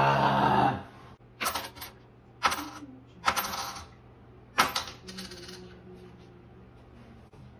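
A nickel flipped onto a hard tabletop, again and again: four sharp clinks about a second apart, each followed by a short ringing as the coin spins and settles. A louder sound trails off within the first second.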